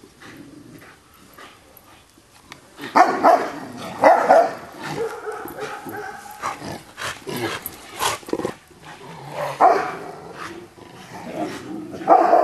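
An old Rottweiler barking in several short bursts, the loudest about three and four seconds in, again near ten seconds and at the end: warning barks at a young pup crowding him.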